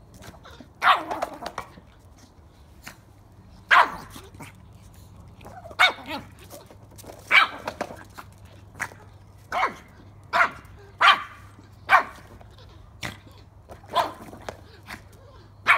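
Small puppy giving short, sharp, high barks while playing with a ball, about ten of them at uneven intervals, with light taps in between.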